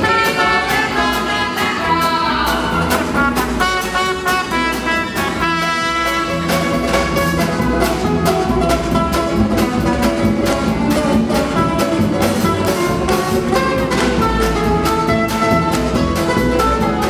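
Live band music with a steady beat: upright double bass, acoustic guitar and drums playing an instrumental passage, with a held melodic lead over them.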